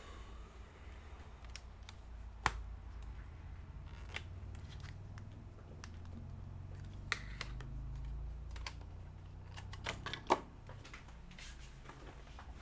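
Scattered computer keyboard keystrokes and clicks, irregular and sparse, with two sharper clicks standing out about two and a half seconds in and near the end, over a faint low hum.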